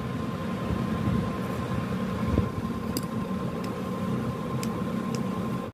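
Steady low hum and hiss of background room noise, with a thin steady high tone throughout and a few light clicks about three to five seconds in.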